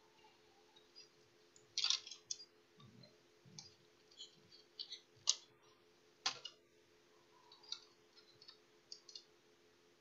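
Light, scattered clicks and taps of a laptop motherboard and its plastic bottom case being handled, with sharper knocks about 2, 5 and 6 seconds in.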